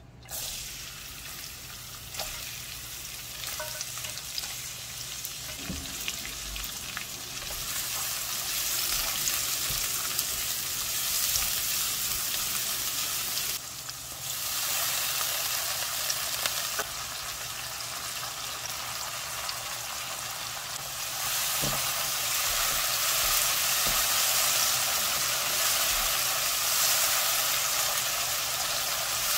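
Minced garlic, sliced red chilli and green onion sizzling in hot oil in a wok while being stirred with a wooden spatula. The sizzle starts suddenly as the aromatics hit the oil and dips briefly about halfway through.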